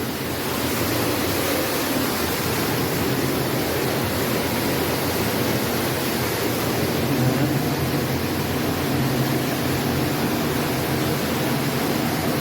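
Steady rushing roar of a hidden underground waterfall, echoing through the mine tunnels.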